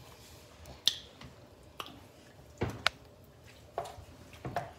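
About six sharp, irregularly spaced clicks and taps of kitchen utensils against dishes.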